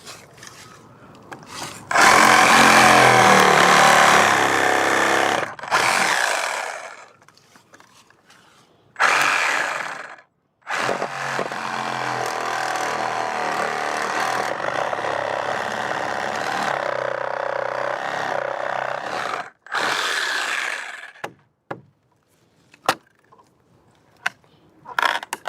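Electric power saw with a bent blade cutting into fence wood in four runs, the longest about eight seconds in the middle, with short pauses between.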